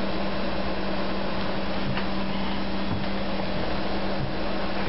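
Steady whir of running fans over a steady low electrical hum, with a couple of faint clicks about two and three seconds in.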